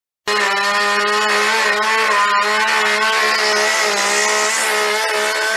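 Two-stroke chainsaw running at high revs with a steady engine note as it cuts into a wooden block. The sound starts abruptly a moment in, after a brief gap.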